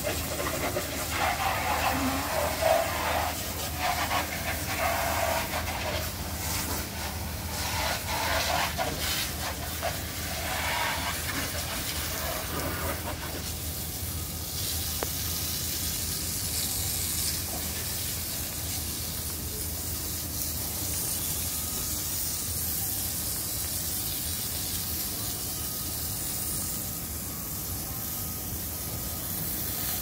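Steady hissing noise, with indistinct voices over roughly the first half.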